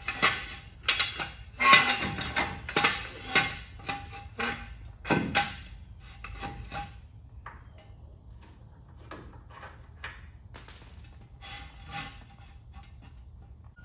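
Irregular clanks and knocks of metal tools and wooden 2x4 blocks being handled under a car on a jack. There is a busy run of sharp knocks in the first half, then only a few scattered ticks.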